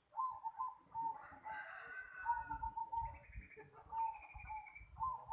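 Zebra doves (perkutut) cooing in repeated short pulsed phrases, with a higher rapid trill from another bird between them.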